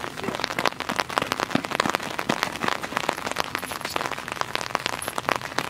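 Rain falling on a wet street and sidewalk: a steady patter made of many sharp, close drop taps.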